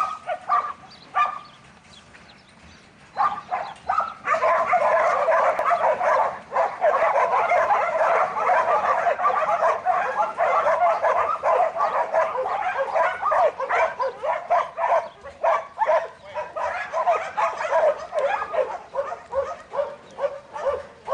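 Dogs barking and yipping in many rapid, overlapping calls. A short lull comes near the start, then the calling runs almost without a break from about four seconds in.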